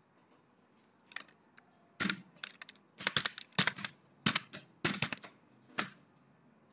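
Computer keyboard typing: a single click about a second in, then a quick, irregular run of keystrokes that stops near the end.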